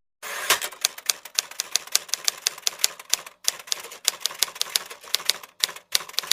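Rapid, irregular typewriter-style key clicks, about five a second, that stop abruptly.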